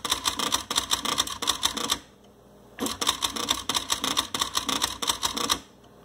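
Xerox 6010 Memorywriter electronic typewriter printing with its daisy wheel in two fast runs of rapid clicks, with a short pause of under a second between them. Bold and underline are both on, so each character is struck several times over: the letter, then the underscore.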